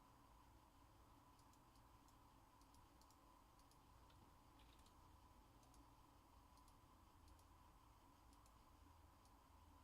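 Near silence: faint room tone with a steady hum and a scattering of small, light clicks.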